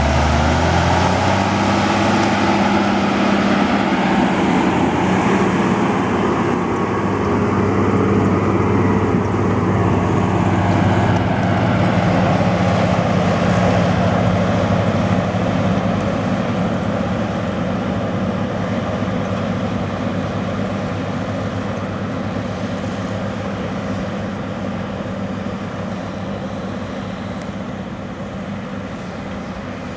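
Case IH Steiger 500 Quadtrac's 12.9-litre diesel engine running steadily under load while pulling a five-furrow plough, with a thin high whine above it. The sound fades gradually over the second half as the tractor moves away.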